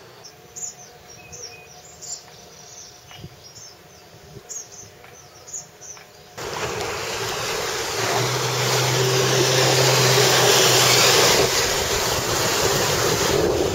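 Faint high chirps over quiet for about six seconds. Then a sudden loud rush of water and wind as an electric mahogany-decked runabout speeds across open water throwing spray, with a low steady hum for a few seconds in the middle.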